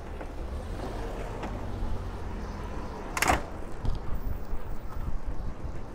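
City street ambience: a steady low rumble of traffic, with one short, sharp sound about three seconds in, a squeak or clatter that drops quickly in pitch.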